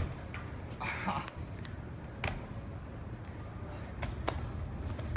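Footfalls and landings of freerunners on the sculptures and paving: three sharp knocks about two seconds apart, over a low steady outdoor rumble.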